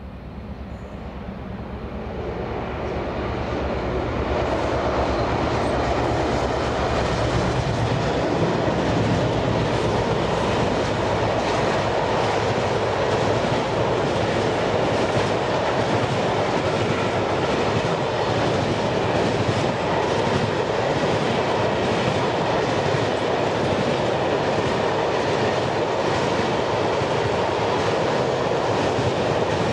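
A train passing close by, its wheels clattering over the rail joints with a steady rumble. It builds up over the first few seconds, then stays loud and even as the train runs past.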